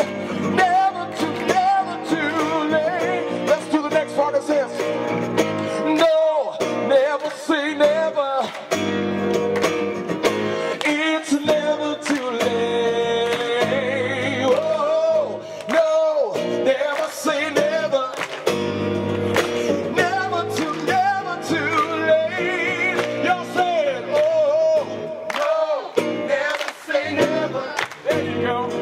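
Live band music with keyboard, bass and electric guitar, and a singer's wordless vocal runs over it.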